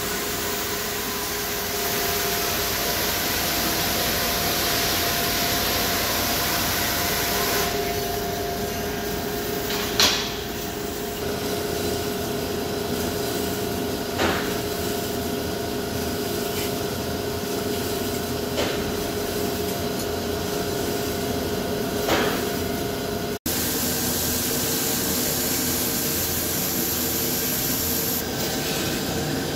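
CNC vertical turning lathe turning a large metal ring forging: a steady machining noise with the hiss of coolant spray and a low steady hum, broken by three sharp clicks. The sound cuts out for an instant about two-thirds of the way through.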